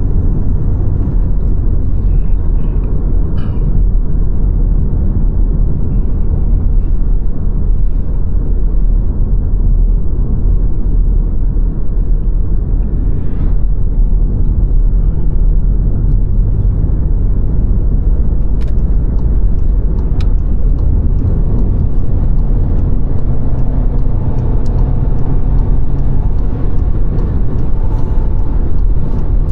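Car driving along a road: a steady, loud low rumble of tyres and engine, with a few faint ticks in the second half.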